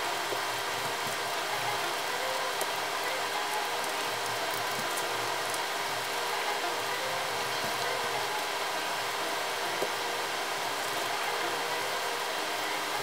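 Steady, even hiss of background noise, with a faint click or two.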